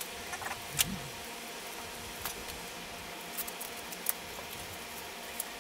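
Scattered light clicks and taps of hands handling small parts and tools at a bare engine block, the sharpest about a second in, over a steady background hiss.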